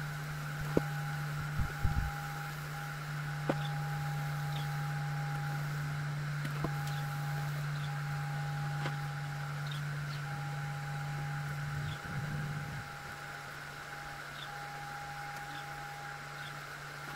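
Two Trees TTS-10 Pro 10 W diode laser engraver cutting 6 mm MDF: a steady low hum runs throughout, with a higher whine that keeps stopping and starting as the laser head moves along the cut. A few faint ticks are heard.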